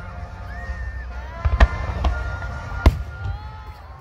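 Aerial firework shells bursting overhead: sharp bangs, the loudest two about a second and a half apart, over a steady low rumble.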